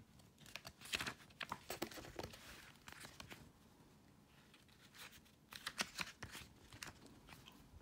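Glossy booklet pages being turned by hand, with the paper rustling and crinkling. It comes in two flurries, about a second in and again about five seconds in.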